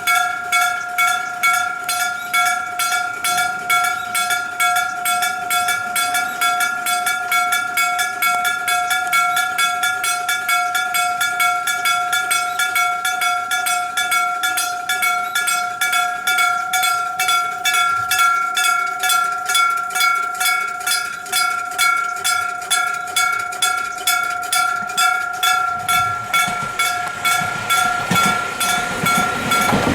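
Level-crossing warning bell of the old electric-bell (dengshō) type, an aluminium-alloy bell struck in a fast, even rhythm that keeps ringing on two steady tones. A train's rumble rises under it in the last few seconds as the train approaches the crossing.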